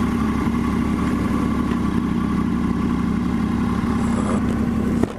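Sport motorcycle engine idling steadily, holding one constant pitch.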